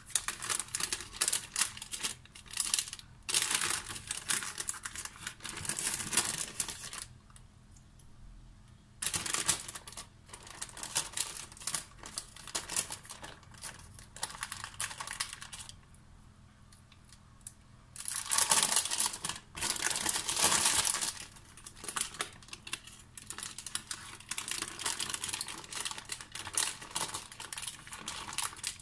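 Baking paper crinkling and rustling in irregular bursts as it is lifted and pulled to roll up a cream-filled sponge cake. There are two quieter pauses, and the loudest rustling comes about two-thirds of the way through.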